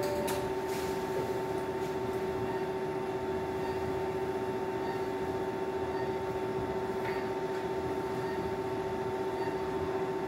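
Steady machine hum holding two constant tones, one low and one higher, over an even hiss.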